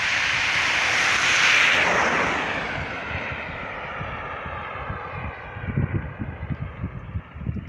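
A vehicle passing close by on the road, its rushing tyre and engine noise swelling to a peak about a second and a half in and then fading away. Wind buffets the microphone near the end.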